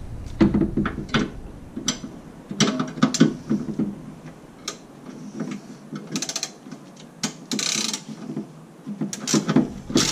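Hand ratchet clicking in short irregular bursts as a socket works the bolt of a car's rear sway bar bracket, with light metal knocks between strokes.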